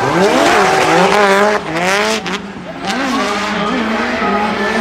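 Two drift cars running in tandem, their engines revving up and down over and over as the drivers work the throttle, with tyres squealing as they slide.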